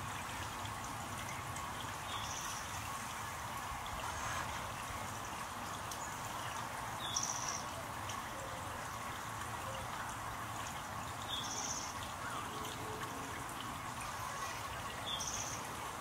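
Backyard water fountain jet splashing and trickling steadily. A short high-pitched blip sounds about every four seconds over the water.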